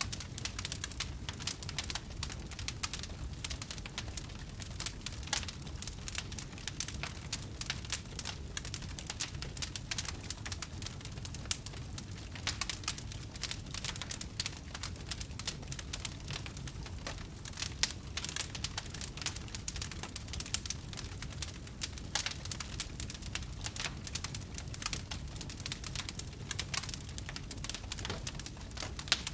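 Wood campfire crackling: a dense, irregular run of sharp pops and snaps over a steady low rumble.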